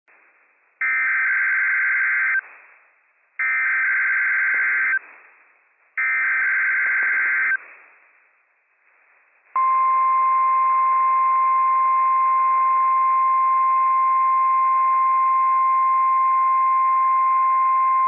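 NOAA Weather Radio Emergency Alert System test signal. Three identical bursts of SAME header data, each a buzzy digital screech about a second and a half long, are followed about halfway through by the steady 1050 Hz warning alarm tone, a single unbroken pitch. The sequence is a routine weekly test of the warning alarm.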